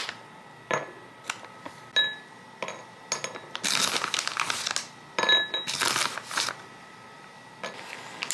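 A plastic snack bag crinkling as macadamia nuts and cashews are shaken out, with a few small clinks of nuts landing in a dish.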